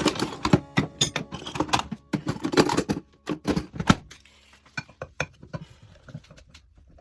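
Metal tools and ceiling-fan parts knocking and clattering against each other in quick, irregular clicks, some with a short metallic ring. They come thick for about the first four seconds, then thin out to scattered taps.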